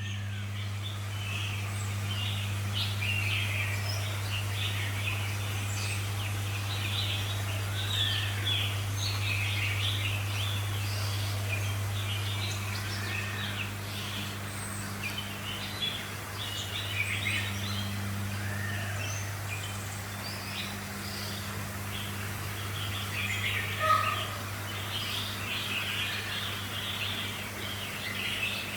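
Many small caged birds chirping and twittering constantly, the calls overlapping, over a steady low hum.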